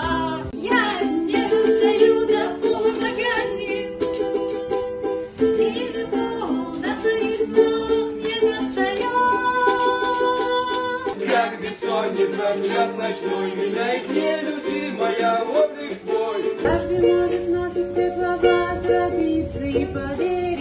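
Ukulele music, with plucked notes and chords.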